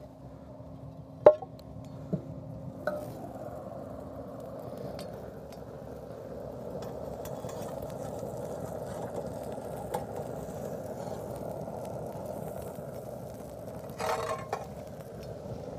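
Metal utensils clinking and knocking on a small pellet grill: a sharp clink about a second in, two lighter knocks soon after, and a short cluster of clinks near the end as a spatula and tongs work the steelhead fillets. A steady background noise runs under it.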